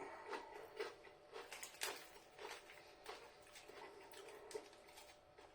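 Faint, irregular crunching of a person chewing crinkle-cut potato crisps, several crisp cracks a second.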